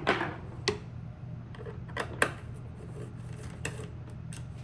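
A handful of sharp, unevenly spaced metallic clicks as a hex (Allen) key works a screw out of the VRH swingarm bracket on a Onewheel GT, over a steady low hum.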